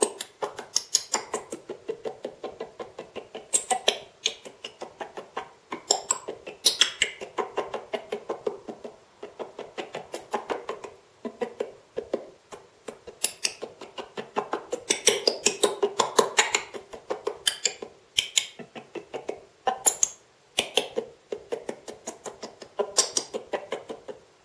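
TV sound from a faulty digital decoder, broken into a rapid stutter of clicking grains with a granulated, delayed echo effect. The programme's audio comes through only as chopped fragments, in runs with short breaks every few seconds.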